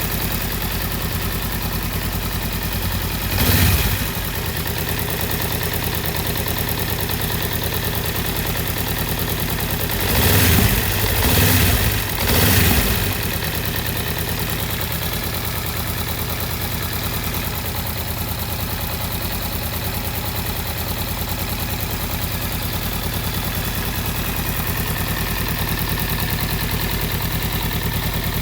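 Honda Rebel 500's parallel-twin engine idling steadily. It is blipped once about three and a half seconds in, then three times in quick succession around ten to thirteen seconds in.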